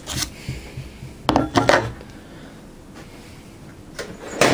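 Metal engine parts and tools clinking and clattering as they are handled and set down on a workbench: a few clinks at the start, a cluster about a second and a half in, and the loudest knocks near the end.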